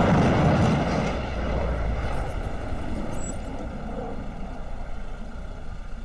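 A jet aircraft passing low overhead: a loud roar that cuts in abruptly, is loudest at first and eases off over the first couple of seconds, then carries on steadier.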